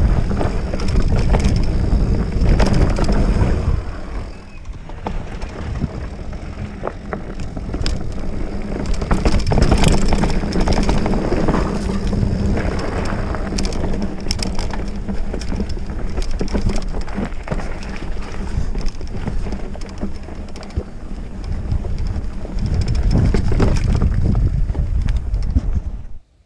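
Mountain bike ridden along a dirt trail: wind buffeting the helmet-camera microphone and tyres on dirt, with frequent clacks and rattles from the bike over bumps. The sound cuts off suddenly at the very end.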